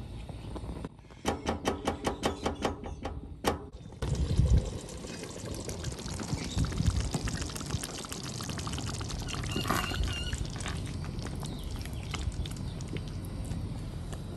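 Thick groundnut and tomato stew simmering in an enamelled cast-iron pot, its bubbles popping in a dense crackle. It starts with a quick run of about a dozen ticks in the first few seconds.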